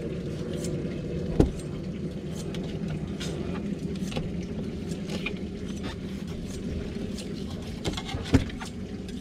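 Knife work on a fish-cleaning table: light clicks and scrapes, and two sharp knocks of the knife or fish against the board, about a second and a half in and near the end. Under it runs a steady low rumble.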